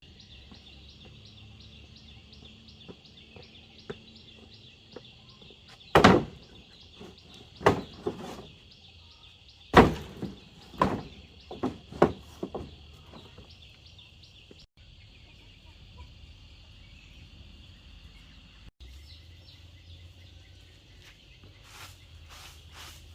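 A steady, high, finely pulsing buzz, with about six loud thuds or knocks coming one to two seconds apart between six and thirteen seconds in.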